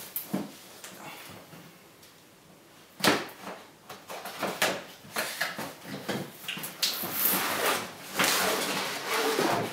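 Laptop box packaging being handled and opened: a sharp knock about three seconds in, then rustling and scraping of cardboard and wrapping that grows louder near the end as the laptop is lifted out.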